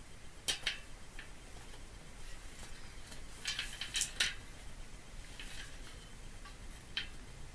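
Light clinks and clicks of small hard parts being handled during a bike inner-tube refit: a couple about half a second in, a louder run of clinks around three and a half to four seconds, and one more near the end.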